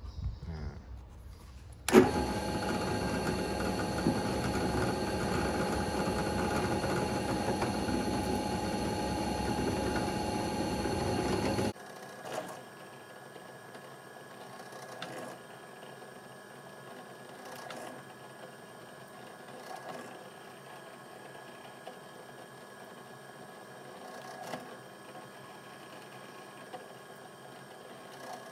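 Bench drill press motor starting up about two seconds in and running steadily. About twelve seconds in the level drops suddenly, and the rest is a quieter steady hum with a few short bumps as holes are drilled through a knife-sheath blank.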